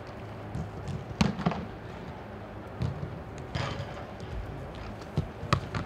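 Footballs being kicked and juggled: about half a dozen separate sharp thuds of boot on ball, the loudest a little over a second in and another near the end, over a steady low hum.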